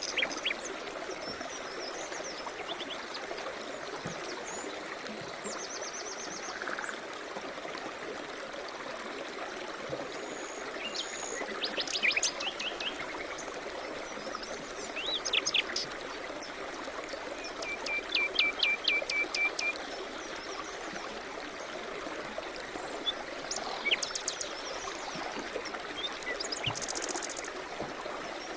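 Songbirds singing over a steady rush of running water from a stream: scattered chirps and quick trills, with a fast run of repeated notes about 18 to 20 seconds in.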